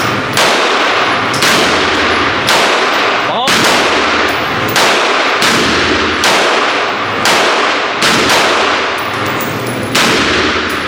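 Gunshots from a semi-automatic firearm fired one at a time, about one per second, around ten in all, each with a short echoing tail.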